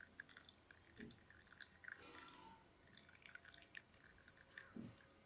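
Near silence: quiet room tone with faint scattered small clicks and a couple of soft, brief sounds.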